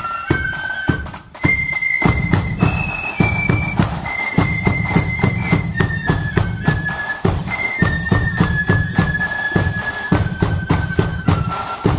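Marching flute band playing a tune: the flutes carry a single high melody over steady, evenly spaced drumbeats, with a brief break about a second in before the next phrase starts.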